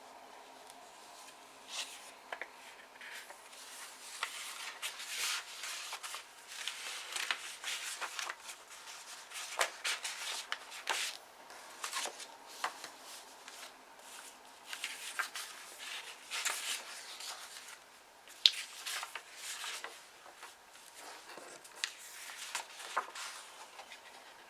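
Paper being handled and pages turned: irregular rustling and crinkling with short taps, one sharper tap about two-thirds of the way through.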